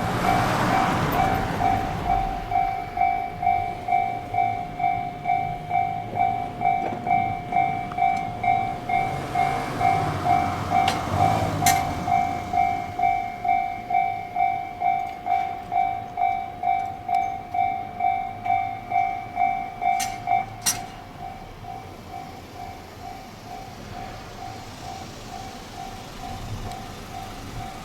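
Japanese railway level crossing's electronic warning bell ringing steadily at about two strokes a second, with a train passing through. About two-thirds of the way in the bell drops sharply to a lower volume and keeps ringing.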